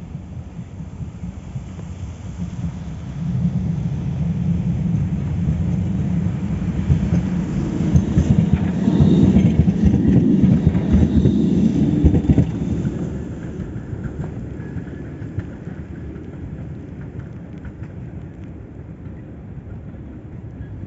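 Blue low-floor tram approaching and passing close by on snow-covered rails. Its running noise grows from about three seconds in, peaks for several seconds as it goes past, and fades as it moves away.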